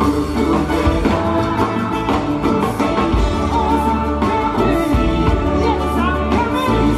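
Live band music: acoustic guitar, electric guitar, bass guitar and drum kit playing together steadily.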